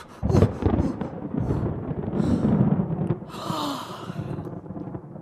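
Sound effects: a heavy low thud just after the start, followed by a dense rushing noise that slowly thins out, with a short falling tone and a brief hiss about three and a half seconds in.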